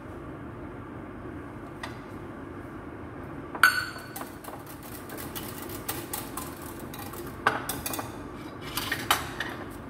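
Wooden spatula stirring in a cooking pot, knocking and scraping against its sides in a string of clatters. The loudest comes about three and a half seconds in, with more near the end, over a steady background hum.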